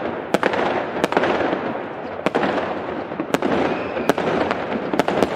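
Aerial fireworks bursting overhead: sharp bangs at irregular intervals, roughly one a second, over a continuous crackle.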